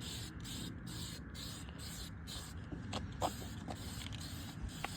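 Aerosol spray-paint can hissing in quick, evenly spaced short bursts, about three a second, with a few small clicks around three seconds in.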